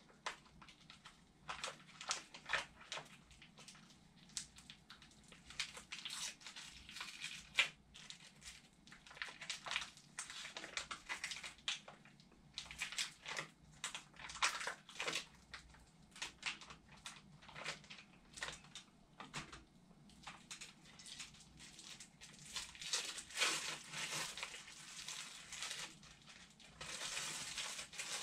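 Crinkling and rustling of cast-sock packaging handled by gloved hands as the sticky, water-activated cast sock is unwrapped. The crinkles come irregularly, with a denser stretch of rustling near the end.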